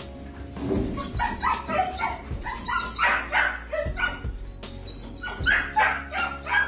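Puppies yipping and whimpering in short, high, repeated bursts, with faint background music underneath.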